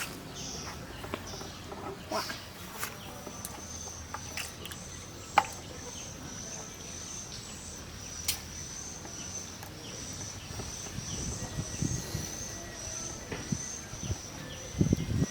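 An insect trilling steadily at one high pitch throughout, with scattered sharp clicks and some rustling near the end.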